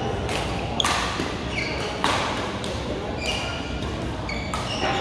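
Badminton play in a large hall: sharp racket-on-shuttlecock hits every second or so, with short high squeaks of court shoes on the floor, over a steady reverberant hall background.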